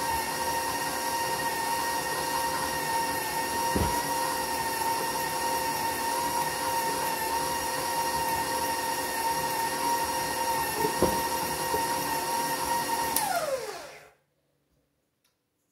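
Electric stand mixer running steadily with a high motor whine as it creams sugar and peanut butter. About 13 seconds in it is switched off and the motor winds down, falling in pitch until it stops.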